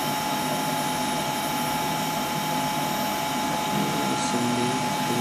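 Steady mechanical whirring hum from lab equipment running, with a constant high whine over it and a faint rattle. Low voices come in near the end.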